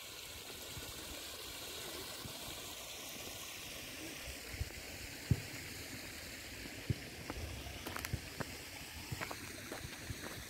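Shallow stream running over stones, a steady rushing of water, with a few light clicks and knocks in the second half.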